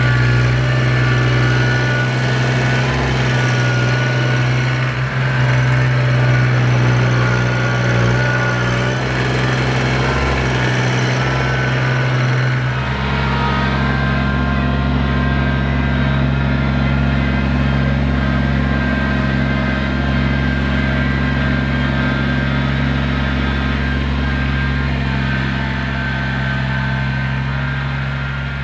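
Kubota BX23S compact tractor's three-cylinder diesel engine running steadily. About halfway through its note changes and a deeper rumble comes in.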